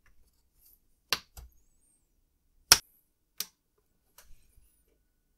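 A few separate sharp clicks and taps as the Agnus custom chip is pressed down into its PLCC socket on an Amiga 500+ motherboard, the loudest about two and a half seconds in.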